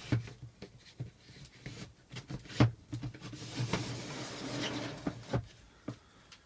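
Aluminium composite panel being slid into the edge track of a Norcold RV fridge door: scattered clicks and knocks, a sharper knock near the middle, then about two seconds of scraping as the panel slides along the track.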